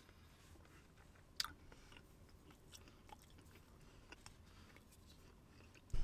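A man quietly chewing a mouthful of steak, with faint clicks of a fork against a plate and one sharper click about one and a half seconds in.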